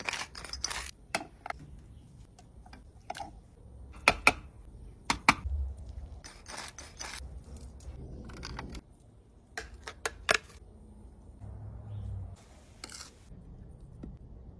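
Kitchen food-prep handling sounds: a string of separate sharp clicks and taps, with the loudest around four, five and ten seconds in, and a few short scrapes or rustles in between.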